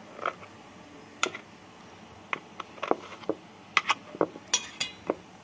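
A knife blade clicking and scraping against an aluminium steamer plate while loosening steamed dhokla from its round moulds: about a dozen sharp ticks at irregular intervals.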